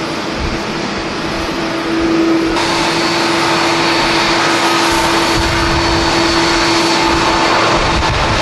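Jet airliner engines with a steady whine over a rushing noise, growing louder about two seconds in as higher whining tones join.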